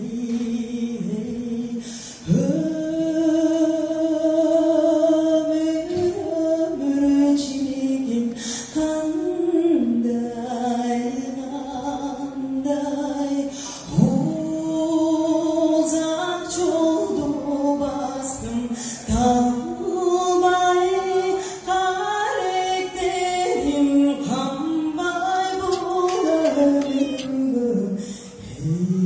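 A solo voice singing a slow melody into a microphone, with long held notes that glide between pitches. It pauses briefly about two seconds in, and again around 14 and 19 seconds.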